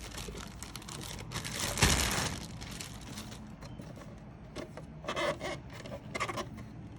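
A dehumidifier being pulled out of its box: packaging rustling and scraping, with a louder scrape about two seconds in.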